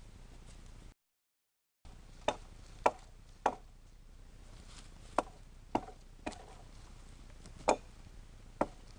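Sharp blows on wood, most likely an axe or hatchet chopping, in runs of about three strikes half a second apart. The sound drops out completely for a moment about a second in.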